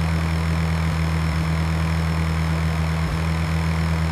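Cartoon harvester's engine running steadily, a deep, even hum.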